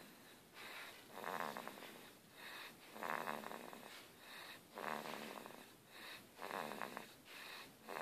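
Sleeping baby snoring, a snore with each breath: four louder snores spaced evenly, with softer breaths between them.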